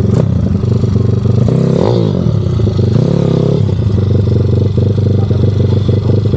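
YCF 150 SM pit bike's single-cylinder four-stroke engine running at low speed, with two short throttle blips where the pitch rises and falls, about one and a half and three seconds in.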